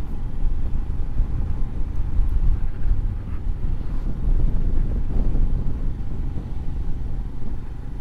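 Motorcycle moving along a road: a steady low rumble of engine, tyres and wind on the microphone.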